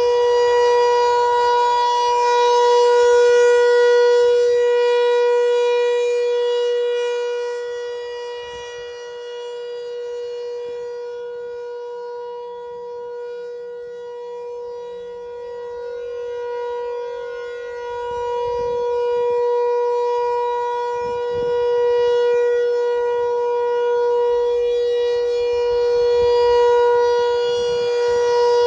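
ASC T-128 rotating outdoor warning siren sounding a steady single-pitch Alert tone for a scheduled test. The loudness swells and fades slowly as the horn turns, dipping in the middle and coming back up near the end.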